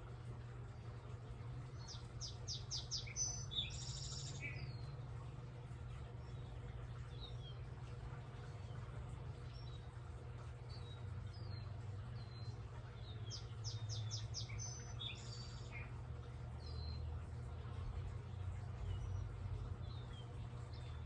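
Wild backyard birds singing: twice, about two seconds in and again about thirteen seconds in, a song phrase of about six quick repeated notes ending in a buzzier note, with scattered short chirps in between, over a steady low hum.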